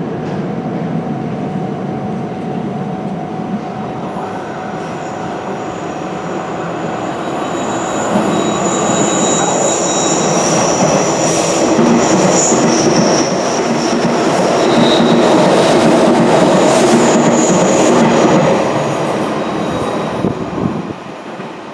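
Hanshin Railway electric train running through the station without stopping. Its rumble grows louder about a third of the way in, carries high-pitched wheel squeal through the middle, and drops away suddenly near the end.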